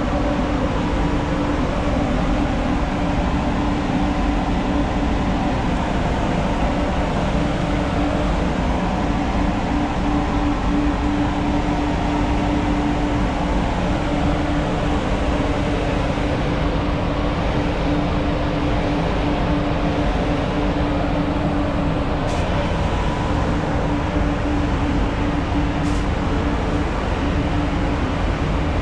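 Spray booth ventilation fans running steadily: a constant airy rush with a steady low hum, and two faint ticks near the end.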